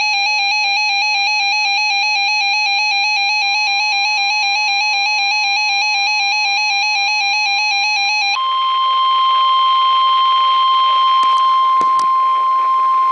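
A weather alert radio's built-in alarm sounds a rapid electronic warble, switching back and forth between two buzzy pitches. About three and a half seconds in, the steady 1050 Hz NOAA Weather Radio warning tone starts faintly beneath it. About eight seconds in the warble stops, and the steady warning tone carries on alone and loud, with a few sharp clicks near the end.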